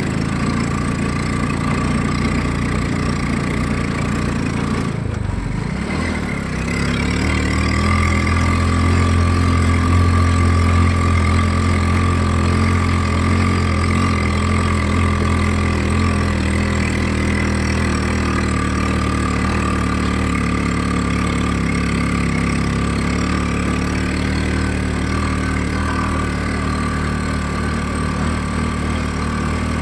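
Homemade mini jeep's Honda Supra X 125 single-cylinder four-stroke motorcycle engine running steadily. It drops out briefly about five seconds in, then comes back with its pitch rising a little and holding.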